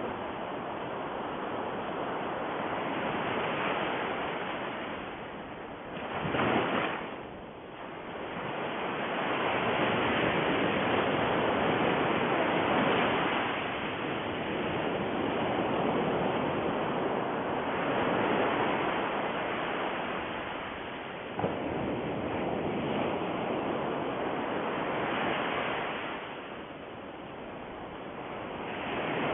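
A rushing noise, like surf, that swells and fades every few seconds, with a brief sharper surge about six seconds in.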